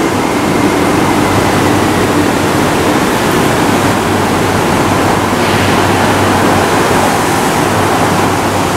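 MTR Tuen Ma line train standing at the platform: a loud, steady rushing noise with a low hum underneath, the sound of its ventilation and on-board equipment running while it waits.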